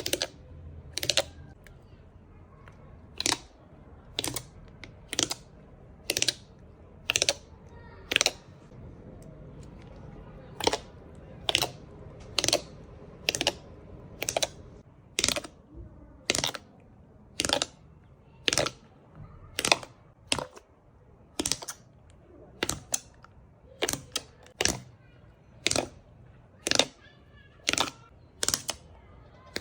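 Slime being pressed and folded by hand, giving sharp clicking pops about once a second, with a short gap about a third of the way through.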